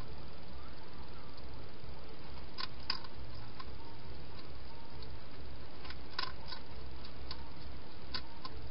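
Hedgehog eating at a feeding bowl: scattered sharp crunching clicks in small clusters, the loudest about six seconds in, over a steady low hum.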